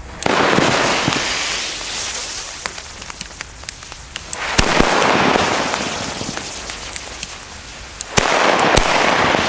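Fireworks packed into a toy car going off. There are three long hissing surges, each starting abruptly and fading over a couple of seconds, with sharp cracks and pops throughout and louder bangs about four and a half and eight seconds in.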